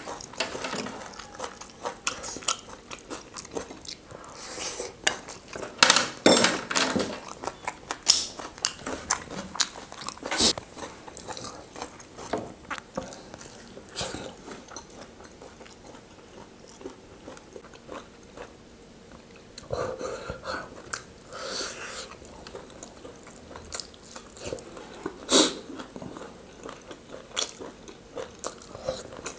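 Close-up eating sounds: biting into and chewing fried mutton nuggets, with crunchy bites and wet mouth clicks coming in clusters, and a quieter spell about halfway through.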